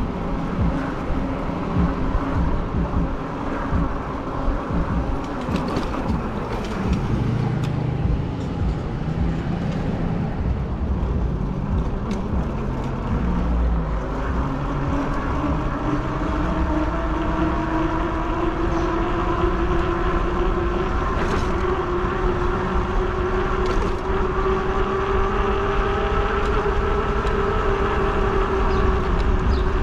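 Fat-tire e-bike being ridden, with wind buffeting the microphone and steady road noise. From about halfway through, a whine from the bike rises slowly in pitch as speed builds, then drops off at the very end.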